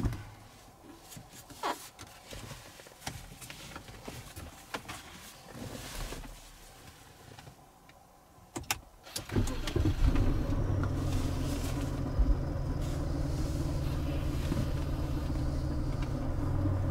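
Car engine started: a few faint clicks, then about nine seconds in the starter cranks and the engine catches. It then idles steadily, drawing on the freshly fitted lithium (LiFePO4) battery before the alternator has begun charging.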